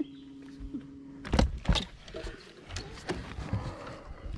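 Electric trolling motor humming steadily for about the first second, then stopping, followed by several sharp knocks and thumps against the boat's hull and deck.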